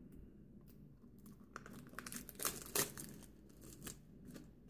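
Thin plastic shrink-wrap being torn and peeled off a deck of tarot cards, crinkling in a run of short crackles, loudest a little past halfway.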